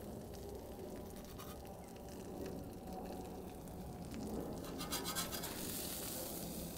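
Metal spatula scraping and clicking across the steel top of a Blackstone griddle as chicken thighs are slid off, with a cluster of scrapes about five seconds in. A faint sizzle hisses underneath.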